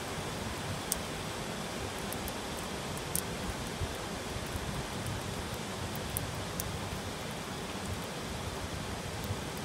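Heavy rain falling steadily: an even hiss with a few sharp ticks of drops striking a hard surface.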